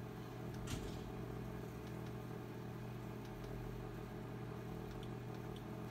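Steady low hum of room tone, with a single faint click under a second in.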